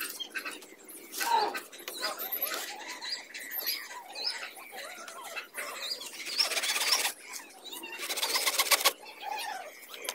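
A hand tool is cut or scraped against bamboo in two rasping stretches of rapid strokes, about six and eight seconds in. Birds chirp in the background throughout.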